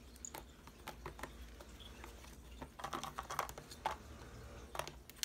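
Irregular light clicks and taps of small plastic snack containers and their snap-on lids knocking against a plastic tray as an owl monkey pries a lid off one container.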